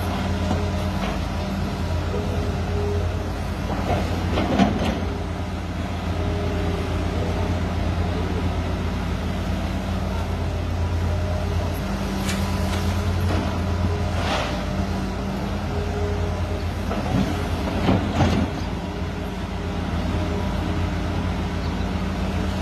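Hitachi crawler excavator's diesel engine running steadily under work, with a few sharp clatters of rock and the steel bucket as it digs and dumps loads into a dump truck, the loudest about four, twelve to fourteen, and seventeen to eighteen seconds in.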